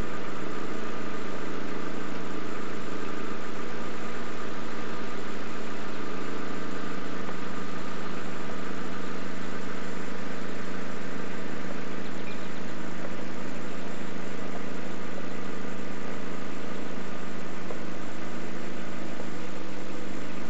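A vehicle engine running steadily at low speed, an even hum that holds without change.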